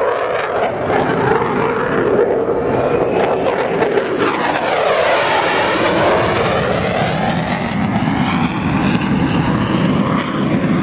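Eurofighter Typhoon's twin jet engines during a fast display pass, a loud continuous rush of engine noise whose tone sweeps as the jet passes closest about halfway through.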